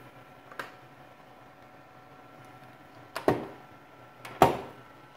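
Latches on a plastic electrical enclosure door being snapped open by hand: a faint click, then two loud plastic snaps over a second apart, over a faint steady hum.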